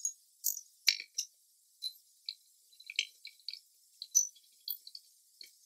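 Thin, high metal clicks and clinks at irregular intervals, a dozen or so, as flat steel bars for a leg vise's crossed linkage are handled and fitted together.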